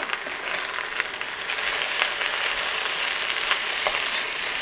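Sliced zucchini and carrots sizzling in hot olive oil in a cast-iron pot as they are stirred with a spatula, with light clicks and scrapes of the utensil. The sizzle grows louder about a second and a half in.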